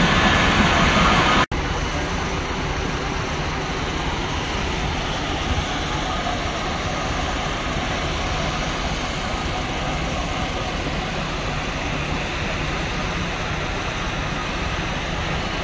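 Steady low rumble of a diesel fire appliance engine running, with general machinery noise. It is louder at first, then drops abruptly about a second and a half in and carries on steadily at a lower level.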